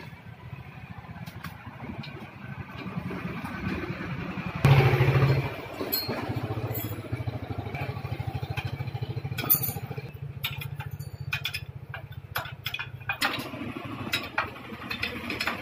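An engine running steadily, briefly louder about five seconds in. In the second half, sharp metal clinks and taps from hand tools and steel parts of a tractor's rear brake hub.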